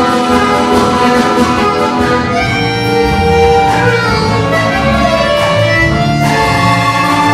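Folk-instrument orchestra playing: plucked strings, violins and bayans (button accordions) together. About two seconds in, the busy texture of quick plucked notes gives way to longer held chords.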